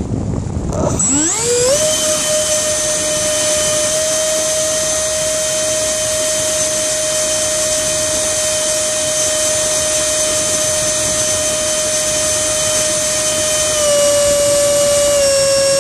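Electric ducted fan (64 mm EDF unit with a 4200kv motor) spooling up about a second in with a steeply rising whine, then held at a steady high whine, its pitch stepping down slightly twice near the end as the throttle eases.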